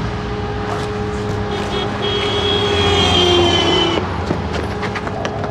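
Road traffic: a motor vehicle running past with a steady low hum, and a high whine from about two seconds in that sinks slightly and stops about four seconds in.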